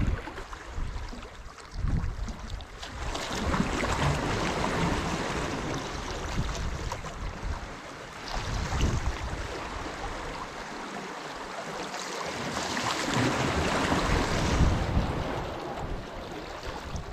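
Small sea waves washing against shoreline rocks, swelling and easing every few seconds, with wind rumbling on the microphone.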